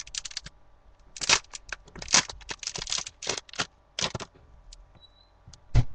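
Crinkling, rustling and tearing of the wrapping on a pack of trading cards as it is pulled open by hand, in irregular bursts.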